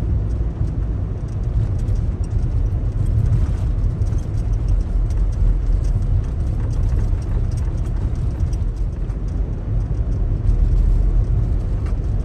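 Daihatsu Taft kei SUV driving on a snow-covered road: a steady low rumble of engine and tyres, with faint scattered ticks high up.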